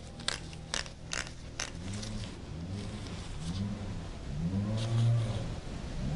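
A gardener's small-engine power tool revs up and down in repeated swells of rising and falling pitch, louder toward the end. Earlier, four sharp clicks of metal hand tools being handled come about half a second apart.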